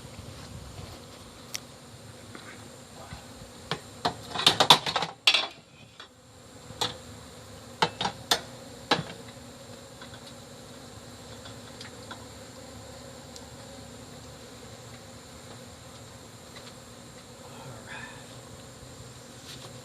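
Honey bees buzzing steadily around an opened hive. A cluster of knocks and scrapes comes about four to five seconds in, and a few sharp clicks around eight to nine seconds.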